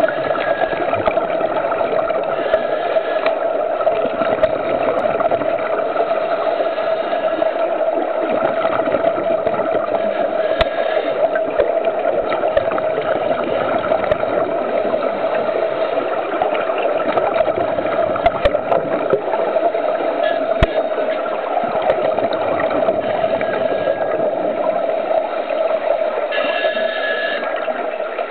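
Underwater ambience picked up by a camera submerged in a swimming pool: a steady hum with hiss, and scattered sharp clicks.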